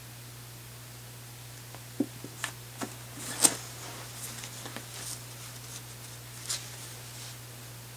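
Hard parts being handled: a scatter of sharp clicks and knocks, the loudest about three and a half seconds in, over a steady low hum.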